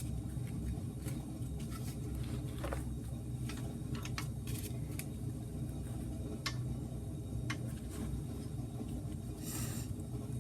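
Scattered, irregular metallic clicks and taps of hand tools working on brake bolts, over a steady low hum.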